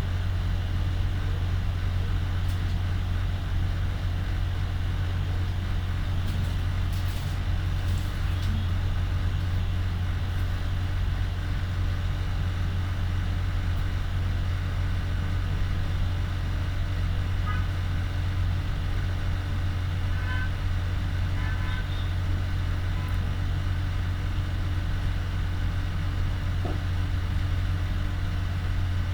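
A steady low hum runs throughout, with a few faint short ticks about two-thirds of the way through.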